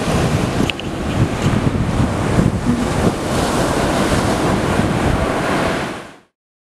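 Ocean surf breaking and washing up a sandy beach, with wind buffeting the microphone. The sound fades out to silence about six seconds in.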